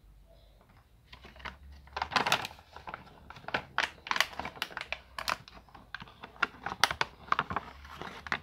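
Clear plastic blister packaging of a miniature toy furniture set clicking and crackling as it is handled, in quick irregular clicks from about a second in.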